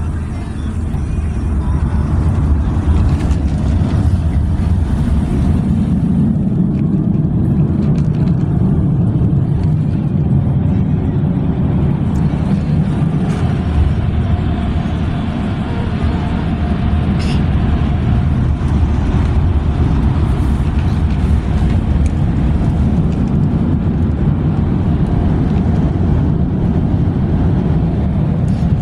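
Automatic car wash equipment heard from inside the car's cabin: a loud, steady rumble of water spray and air blowers against the bodywork, building over the first couple of seconds.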